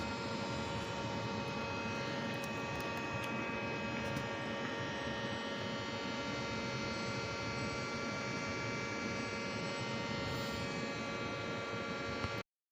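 Steady droning hum made of many unchanging tones, with a light hiss beneath, cutting off suddenly near the end.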